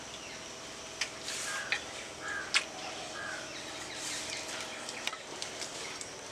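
Wet hands scrubbing the inside of unglazed clay dishes: a soft rubbing with scattered light scrapes and taps against the earthenware, sharper about a second in, near the middle and about five seconds in.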